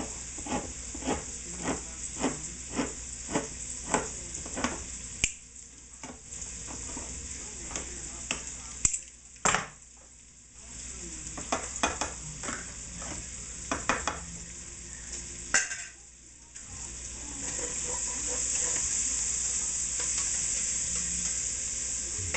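Manual can opener cranking around a tin can, clicking about twice a second for the first five seconds. This is followed by a few scattered knocks and scrapes of a utensil in the opened can. Under it all a pan of vegetables sizzles as they sauté, growing louder over the last few seconds.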